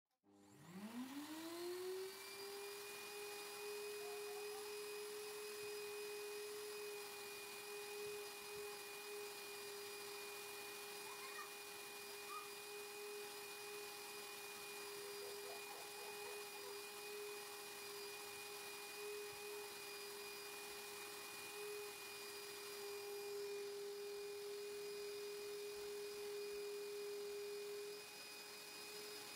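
Canister vacuum cleaner switched on, its motor spinning up with a rising whine over the first second or so, then running at a steady pitch while the nozzle works over the fabric sofa.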